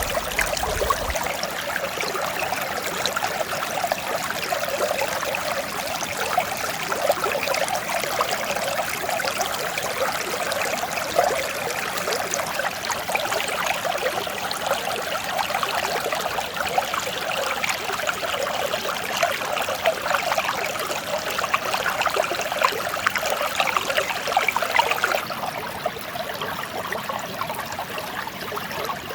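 Mountain stream flowing steadily, a dense, continuous rush of water full of small splashes and gurgles. The highest hiss thins a few seconds before the end.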